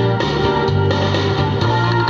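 Instrumental accompaniment with guitar over a bass line that changes note every half second or so, with no singing.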